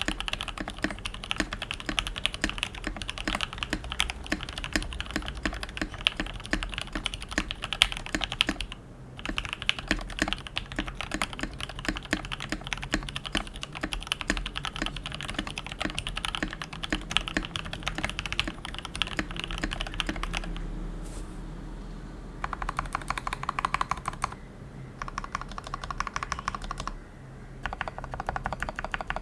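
Mechanical keyboard with lubed Gateron Yellow linear switches, PBT keycaps, an acrylic plate and a plastic ABS case, typed on quickly and continuously. About two-thirds of the way through, the steady typing gives way to shorter bursts of rapid keystrokes with brief pauses between them.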